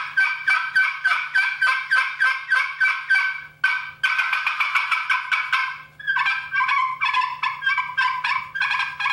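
Glass-surface friction turkey call with a Wilsonart laminate pot, run with a carbon-tipped striker: a loud, rapid series of raspy hen-turkey notes at about four strokes a second, broken once briefly about three and a half seconds in. After about six seconds the notes drop lower in pitch.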